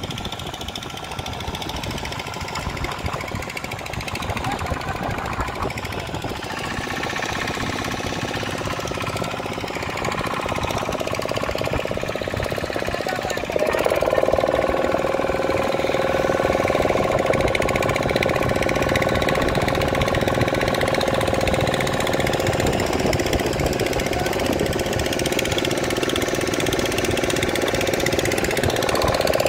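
Engine of a wooden passenger boat running steadily under way with a chugging drone. About halfway through it gets louder and its note settles into a steady hum.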